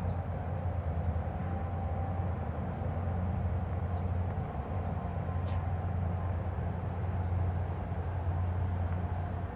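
Diesel engines of a river towboat pushing a barge, a steady low drone.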